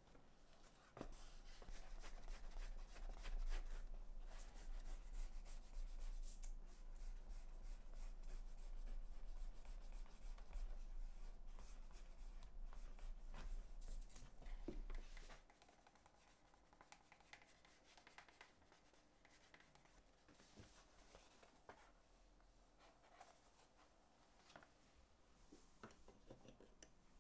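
Scratching and rubbing of a tool or hand on leather, a close, dry, writing-like sound. A low hum runs under it for the first half, then it drops to a quieter stretch of scattered small taps and rubs.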